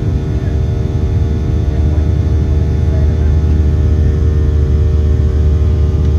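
Steady jet-engine and cabin drone inside a Boeing 737-700 with CFM56-7B turbofans: a loud low rumble with a steady hum over it.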